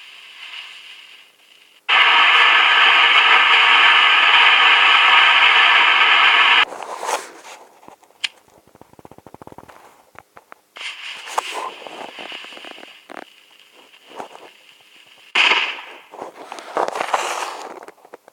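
Diwali fireworks: a firework hisses loudly and evenly for about four and a half seconds, starting about two seconds in and cutting off suddenly. Scattered crackles and pops follow, then a fainter hissing stretch and a few sharper bursts near the end.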